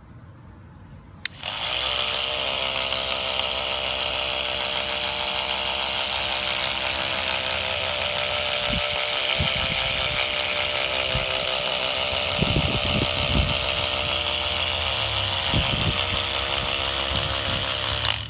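Handheld power tool switched on about a second in, its motor running steadily at a constant pitch with a strong hiss, then shut off just before the end. A few low bumps in the second half.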